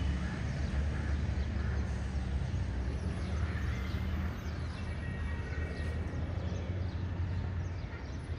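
Outdoor city ambience: a steady low rumble, with faint bird chirps scattered through the middle.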